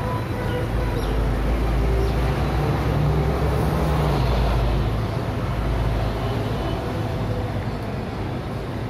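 City bus passing close in street traffic, its engine rumbling low; the rumble builds, is loudest about three to four seconds in, then fades, leaving steady traffic noise.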